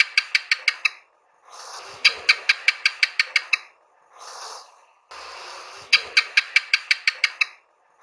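Wall lizard (house gecko) chirping: quick runs of about eight sharp clicks, roughly seven a second, each run rising out of a soft hiss. The runs repeat with short pauses between them.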